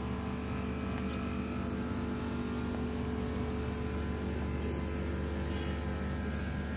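Steady machine hum holding several low tones without change.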